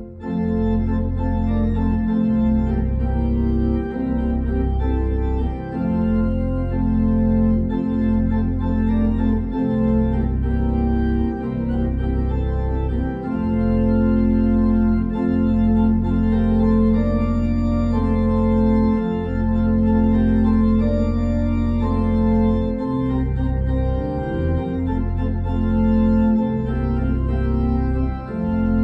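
Organ playing a slow piece of sustained chords, the bass notes changing every second or two.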